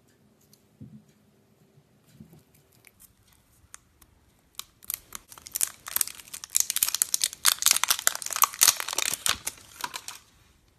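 Thin clear plastic seashell-shaped slime container being pried open, giving off dense crinkling and crackling. It starts a little under halfway through and lasts about five seconds. Before that there are only a few faint clicks.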